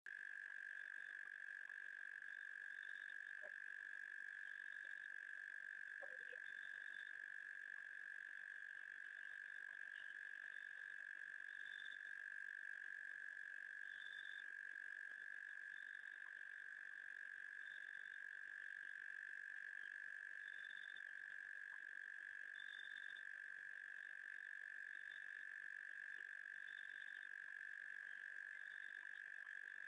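Faint night chorus: a continuous, even high trill, with short higher chirps every second or two.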